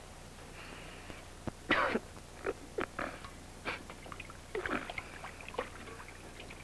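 A wounded man giving short grunts and groans of pain while being operated on, mixed with a few sharp clicks; the sounds start about a second and a half in and stop shortly before the end, the loudest near the start.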